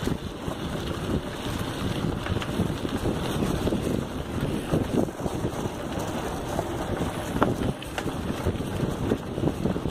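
Wind rushing over the microphone of a bicycle being ridden down a dirt trail, with the tyres rolling on the dirt and scattered rattles and clicks throughout.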